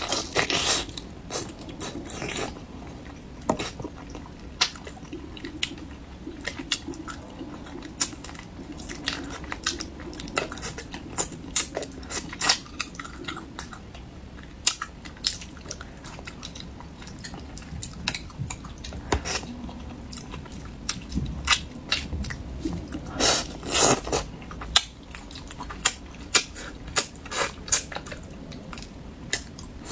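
Close-up mouth sounds of a person eating spicy braised carp: chewing, sucking the flesh off the bones and biting, with frequent sharp clicks and smacks. A louder flurry of them comes about three quarters of the way through.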